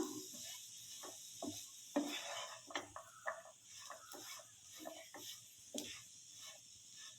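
A cooking utensil scraping and knocking irregularly against a pan while a crushed beef and onion samosa filling is stirred.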